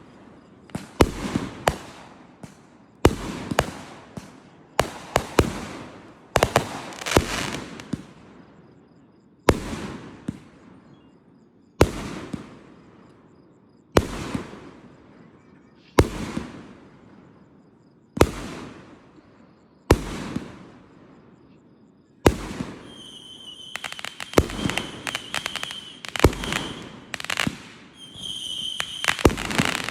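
Aerial fireworks shells bursting one after another, each sharp bang trailing off into a fading rumble. Through the middle stretch they come about every two seconds. Near the end the bangs come quicker and a steady high whistle sounds over them.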